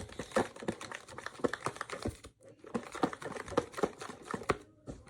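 A pencil stirring glue and laundry detergent in a bowl, making quick irregular clicks and taps against the bowl, with a short pause a little over two seconds in; it stops near the end.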